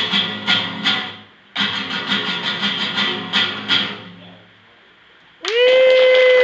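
Acoustic guitar strumming in two short phrases with a brief break between, the last chords dying away about two-thirds of the way in. Near the end, one loud, long held vocal shout, steady in pitch and dropping as it ends.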